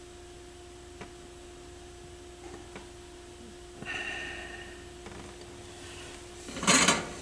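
Small clicks from needle-nose pliers and thin wire being handled, over a steady faint hum. A short, loud breath through the nose comes near the end.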